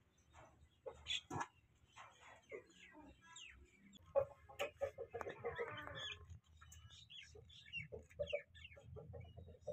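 Hen clucking in a string of short calls, with a denser run of calls about halfway through: a hen that has just laid her first egg.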